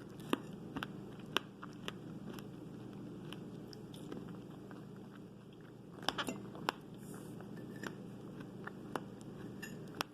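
Close-up biting and chewing of fresh fruit: irregular sharp crunchy clicks, with a quick cluster about six seconds in, over a steady low hum.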